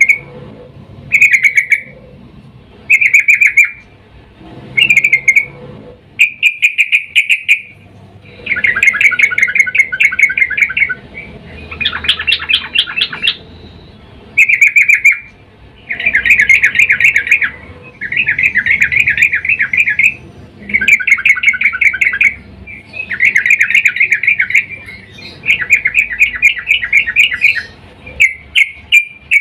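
Sooty-headed bulbul (trucukan) giving loud, rapid chattering calls in repeated bursts of quick notes with short pauses between them. It is presented as a female in breeding condition calling to a male, used as a lure call.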